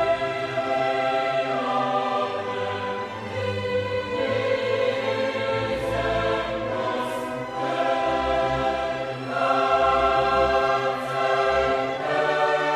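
Background music: a choir singing long held chords over orchestral accompaniment.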